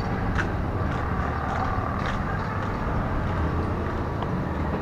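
Street traffic noise with a steady low rumble of motor engines, picked up by an action camera's built-in microphone while walking. Soft regular knocks come about every half second, in step with walking.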